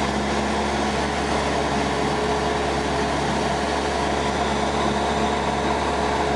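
Cessna light aircraft's piston engine and propeller running in cruise, heard inside the cabin as a steady, even drone that holds the same pitch throughout.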